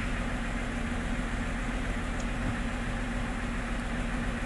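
BMW engine idling steadily with a misfire, which the live data shows has moved to cylinder 5 with the swapped coil; the mechanic takes the ignition coil to be most likely faulty.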